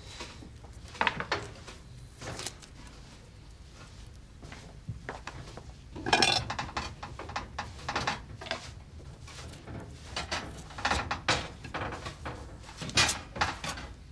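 Kitchen clatter: light knife and dish knocks and clinks, scattered a second or two apart, a few with a short ring.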